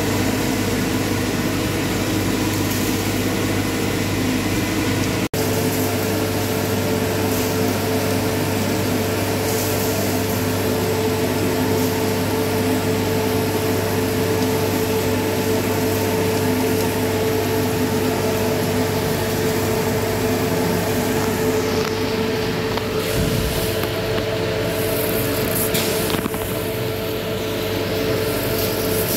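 Coffee roaster's cooling tray running: a steady fan and motor hum with the rushing hiss of freshly roasted beans being swept round by the stirring arms, broken by a momentary dropout about five seconds in.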